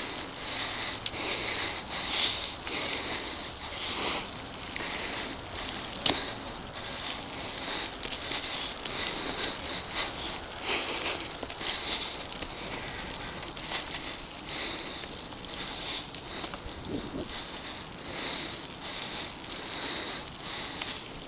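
Mountain bike rolling fast along a dirt singletrack, its tyres crackling over dry leaves and grit, with small clicks and rattles from the bike and one sharp knock about six seconds in.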